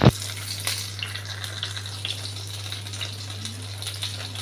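Hot oil crackling and sizzling as tenggiri (Spanish mackerel) fillets deep-fry, a steady hiss full of small pops. A sharp thump sounds right at the start, over a steady low hum.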